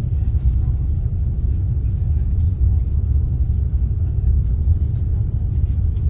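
Steady deep rumble of a Sapsan high-speed train running at speed, heard from inside the passenger cabin: wheels and running gear on the track.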